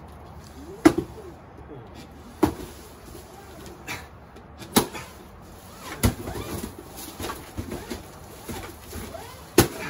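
A stick whacking a hanging cardboard llama piñata: about six sharp knocks at irregular intervals, the loudest about a second in and again near the end.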